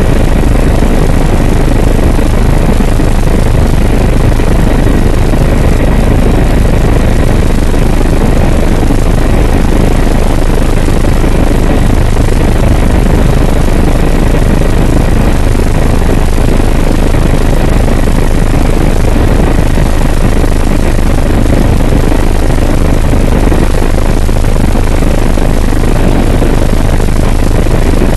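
Helicopter in flight, heard from inside the cabin: a loud, steady drone of engine and rotor that never lets up, with a thin steady whine above it.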